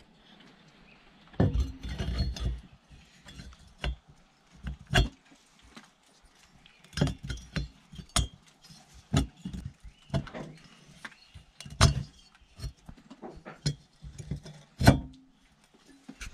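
Engine cylinder being slid over the piston and onto the crankcase studs of a two-stroke engine: scattered metal clinks and knocks, with the loudest knock shortly before the end.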